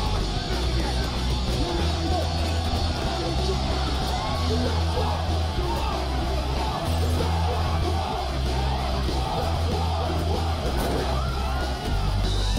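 A crowd of men yelling and chanting "War!" over loud rock music with a heavy bass line.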